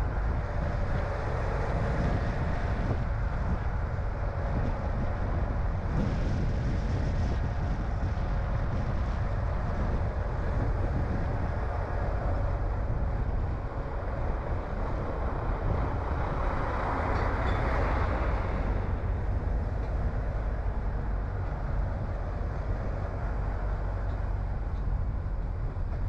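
A car driving: steady engine and tyre rumble with wind noise. A brighter hiss swells and fades about two-thirds of the way through.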